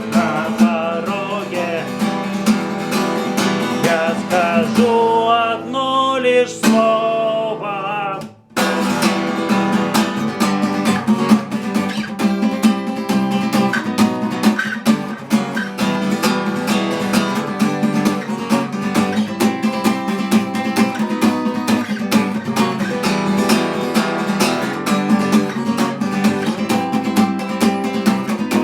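Acoustic guitar strummed, with singing over it in the first several seconds. About eight seconds in the playing breaks off for a moment, then resumes as steady, fast strumming with no voice.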